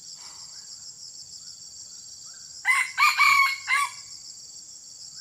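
Red junglefowl rooster crowing once: a short, clipped crow of about four notes, lasting just over a second, a little past the middle. A steady high drone of insects runs underneath.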